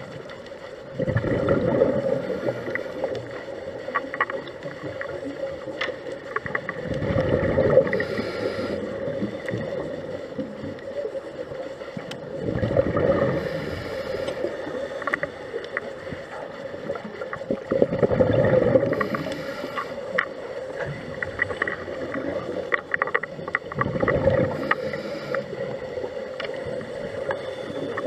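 Scuba regulator breathing heard underwater: five rushing, gurgling bursts of exhaled bubbles about every five seconds, over a steady hum and small clicks.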